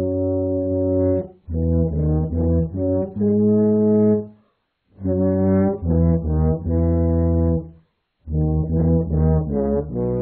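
Trombone playing a slow melody of held notes in four short phrases, with a brief pause between each phrase.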